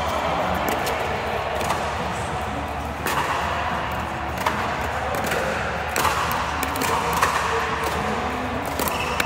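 Pickleball rally: sharp clicks of paddles striking the plastic ball, with ball bounces, about every second and a half, over a steady background hiss.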